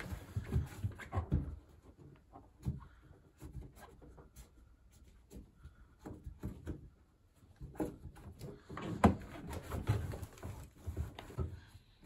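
A dry cloth towel rubbing and wiping inside a washing machine drum and along its rubber door seal, with irregular scuffs and soft knocks from hands and cloth against the drum; the loudest knock comes about nine seconds in.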